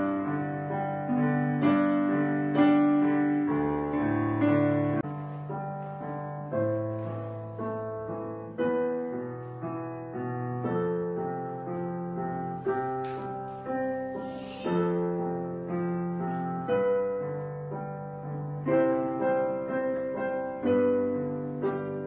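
Slow solo piano background music, chords struck and left to ring and fade.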